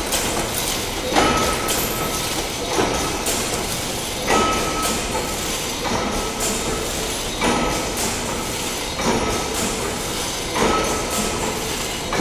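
Wire mesh weaving loom running as it weaves 40-mesh 304L stainless steel wire cloth: steady machine clatter with a heavy knock about every second and a half, each knock followed by a brief metallic ring.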